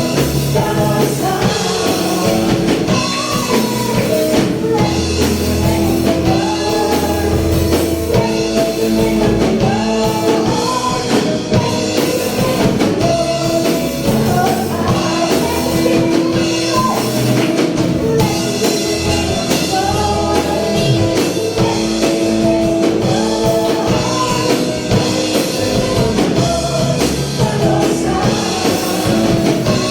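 A worship song played by a band, with drum kit, bass and guitar under a singing voice.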